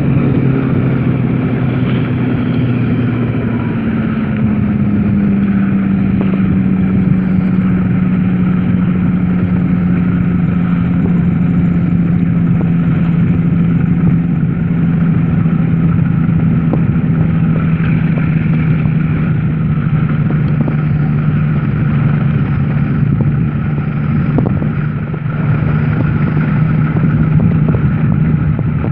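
Weight-shift microlight trike's engine and propeller droning steadily in flight. The pitch drops over the first few seconds, then eases slowly lower.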